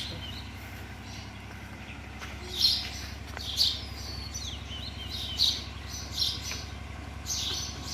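Birds chirping: short, high calls repeated every second or so, several falling in pitch, with the loudest ones a few seconds in, over a steady low hum.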